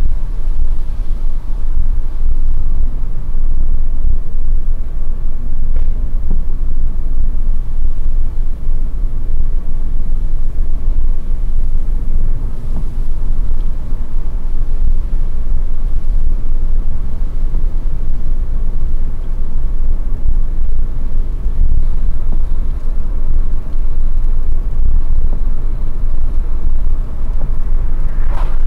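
Steady low rumble of a car driving at about 70 km/h on a wet road, engine and tyre noise heard from inside the cabin.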